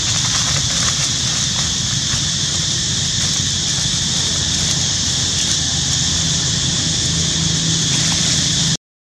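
Steady outdoor ambience: a constant high-pitched hiss or drone with a low hum beneath it, and a few faint ticks in the first few seconds.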